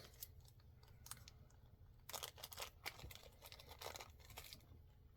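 Faint crinkling and crackling of plastic packaging as pins are handled and unwrapped, in short scattered bursts about two seconds in and again around four seconds.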